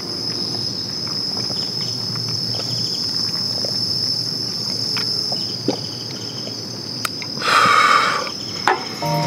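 Insects singing in one steady, unbroken high tone, with faint ticks and a brief louder breathy burst near the end.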